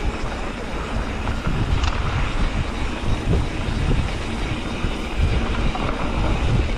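Mountain bike riding fast down a dirt trail: a steady rumble of tyres and wind on the microphone, with irregular knocks and rattles as the bike goes over bumps.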